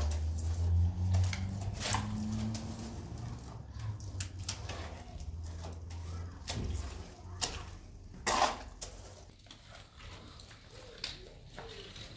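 Trowel spreading and scraping wet mud plaster across a wall: irregular scrapes and taps, the loudest about eight seconds in. A low rumble runs under the first half and fades out.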